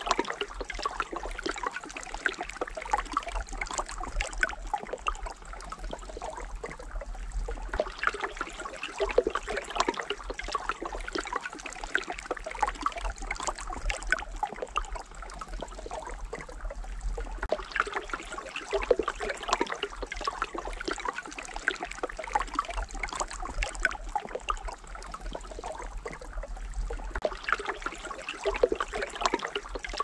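Shallow stream trickling and babbling over pebbles, a continuous patter of small splashes that swells and eases every few seconds.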